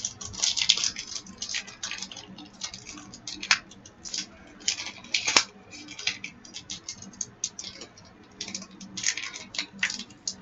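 Foil trading-card pack wrapper crinkling and tearing, with the cards inside being handled: a fast, irregular run of small crackles and clicks.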